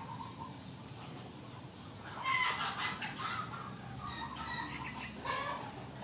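Rooster calling from inside a wire cage: a run of calls starting about two seconds in, loudest at first, with a last call near the end.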